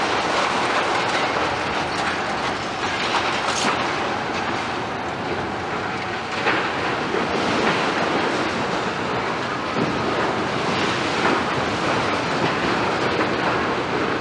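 Demolition excavators, a Liebherr 936 and Cat machines, running their diesel engines while their grabs work broken concrete: a continuous loud clatter and crunching of rubble with frequent knocks, no let-up.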